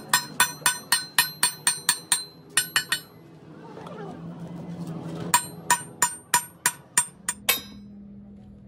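A hammer striking metal in two runs of blows, about three a second, each blow ringing, with a pause of about two seconds between the runs.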